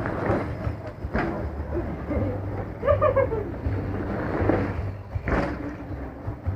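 Mountain bike ridden on a dirt trail: a steady wind rumble on the action camera's microphone with tyre and frame rattle, and two sharp knocks as the bike hits bumps, about a second in and near the end.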